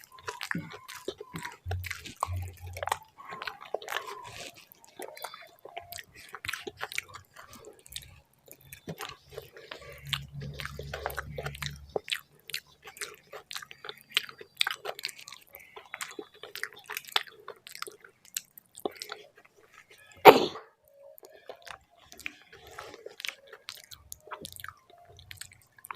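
Close-miked chewing of rice and mashed bharta, with many short wet mouth clicks and smacks. One louder sharp knock about twenty seconds in.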